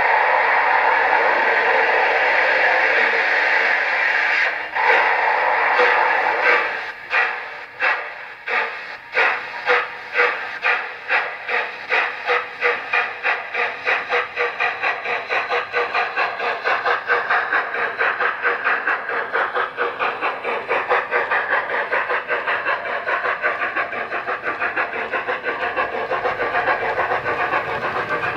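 Steam sound from a DCC decoder in a Hornby OO-gauge Flying Scotsman model, played through its two fitted speakers. A steady steam hiss breaks off briefly about five seconds in. Then exhaust chuffs begin slowly and quicken steadily as the locomotive pulls away, running close together and a little fainter near the end.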